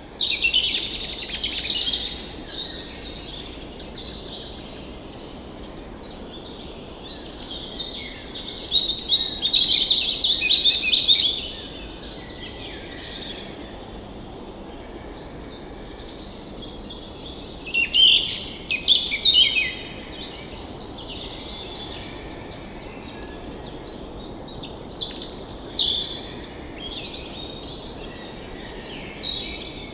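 Songbirds chirping and trilling in bursts, several calls overlapping, with louder flurries about a third and two thirds of the way through. Beneath them is a steady, even rush, typical of a flowing forest stream.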